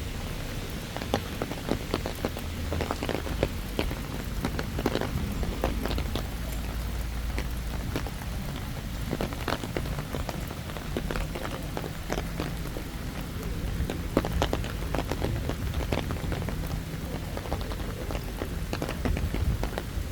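Rain falling, with many irregular drop taps over a steady hiss and a low rumble.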